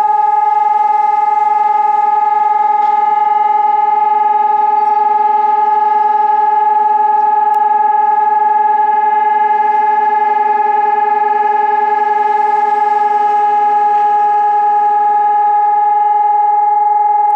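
Civil-defence warning siren sounding one loud, steady tone that holds its pitch without wavering: the continuous test tone of the city's public warning system.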